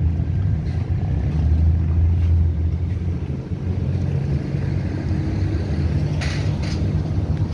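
Low, steady rumble of street traffic, with a brief louder hiss about six seconds in.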